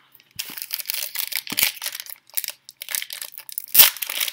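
A foil wrapper of a Panini Chronicles basketball card pack crinkling as it is handled, with a louder sharp rip just before the end as the pack is torn open.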